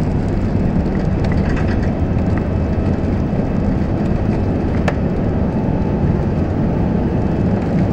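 Airbus A380 cabin noise during the takeoff roll: a steady, loud rumble of the engines at takeoff power and the wheels running over the runway, heard from inside the cabin. A faint click comes about five seconds in.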